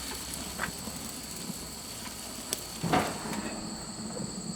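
Chicken wings sizzling on a hot grill, with scattered small crackles and a brief louder rush about three seconds in.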